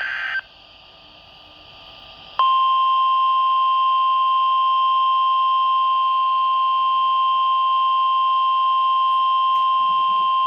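A short burst of data tones, a moment of low radio hiss, then about two seconds in the NOAA Weather Radio 1050 Hz warning alarm tone starts: one loud, steady, unbroken tone. It signals that a warning broadcast, here a severe thunderstorm warning, is about to follow.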